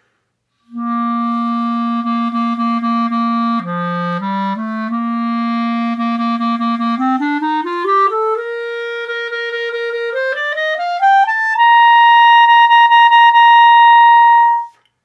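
Clarinet playing a short demonstration passage. It starts with a low note repeated in quick tongued strokes and dips briefly lower. It then climbs step by step to a middle note and finally to a long, full high note, the loudest part, held near the end and cut off cleanly. It is played right after a Breath Builder breathing exercise, to show stronger air support in the tone.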